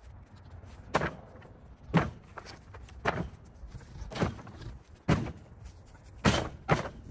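Trash and debris being tossed into a pickup truck bed: a run of heavy thuds about one a second.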